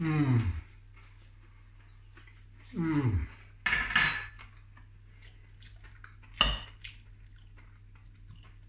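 A man hums a short falling 'mmm' at the start and again about three seconds in while eating. A metal fork scrapes and clatters on a plate just after the second hum, and there is one sharp clink later on.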